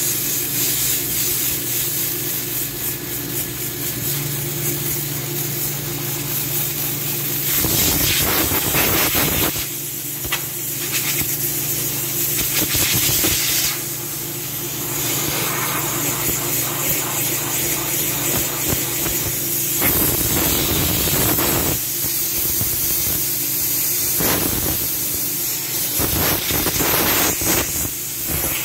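Compressed air hissing from an air-hose blow gun in repeated blasts of one to a few seconds, blowing dust out of a screw air compressor, over a steady low machine hum.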